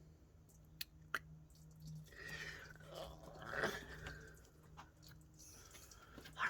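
Faint hand-work at a leaking transmission cooler line on a radiator: two small clicks, then a couple of seconds of wet squishing and rubbing as transmission fluid runs from the loosened fitting.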